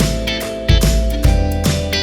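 Background music with a steady beat: plucked guitar over drums.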